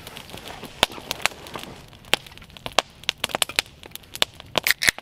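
Pine campfire crackling, with irregular sharp pops.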